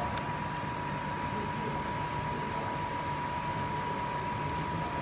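Steady machine hiss, like a fan running, with a constant thin high whine over it and a faint tick or two.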